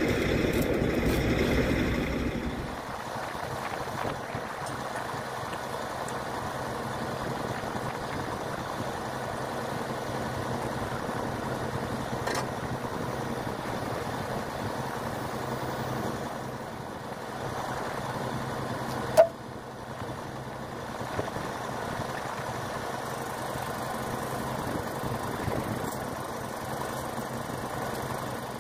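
Heavy truck engine idling steadily, louder for the first couple of seconds, with one sharp metallic clank about nineteen seconds in.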